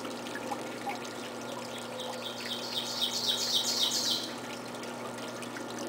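A songbird singing a rapid series of short, high repeated notes for about two seconds, starting about two seconds in, over a steady low hum and faint noise.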